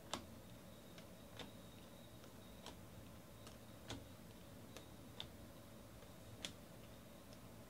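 Faint, sharp clicks of baseball trading cards being flicked off a stack one at a time, about one every second and a bit.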